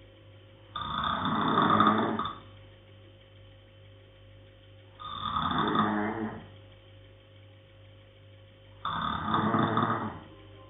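Slow, regular snoring: three long snores about four seconds apart, each lasting a second and a half or so.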